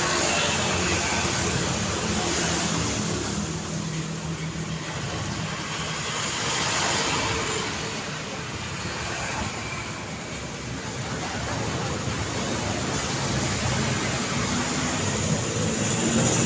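Road traffic: a continuous wash of car tyres and engines passing, with one vehicle's pass swelling about seven seconds in and another growing louder near the end.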